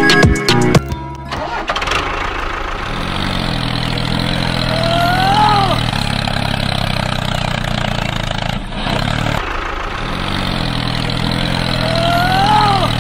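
An engine starting and running steadily, with a brief rising-and-falling whine twice, about seven seconds apart. Music cuts off just under a second in.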